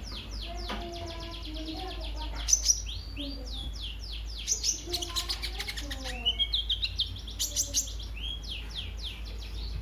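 Sunbird (the kolibri ninja of Indonesian bird-keepers) singing a fast, unbroken twittering song of quick high falling notes. It has a few louder sharp notes about two and a half seconds in and a dense cluster of them between about six and eight seconds.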